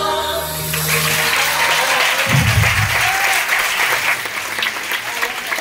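The last chord of a live band's song held and cut off under a second in, then audience applause.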